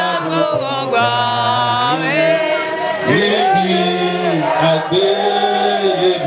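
Voices singing a chant-like song with long held, wavering notes.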